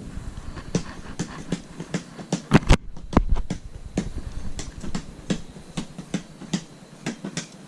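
Irregular clicks and knocks of hands and tools working a raccoon carcass while pulling off its tail, with a cluster of louder knocks about two and a half to three seconds in.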